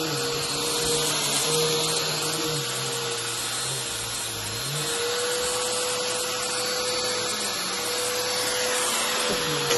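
Upright vacuum cleaner running steadily while pushed over a shag rug, with a continuous motor whine and suction rush. The motor's pitch shifts slightly as it works the pile, rising a little about halfway through.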